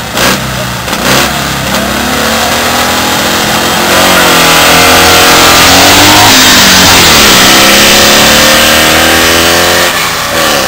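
Historic single-seater racing car's engine blipped on the start line, then launched at full throttle about four seconds in and pulled away hard, its pitch climbing and dropping with each upshift. The sound falls off sharply near the end as the car goes up the road.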